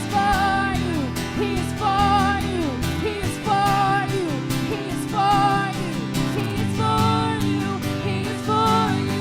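Live worship band music with guitars holding steady chords, while a lead line plays short wavering phrases, each about a second and a half long.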